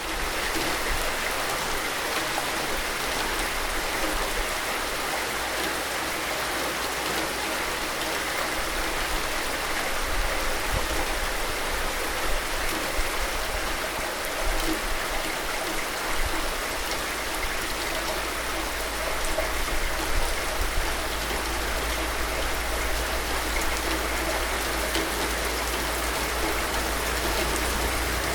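Steady rain falling, a dense even hiss without letup.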